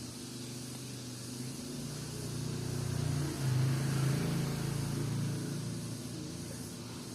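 A small motor running with a steady low hum, its pitch stepping up a couple of times and loudest about halfway through, with no voice-like or odd noises in it.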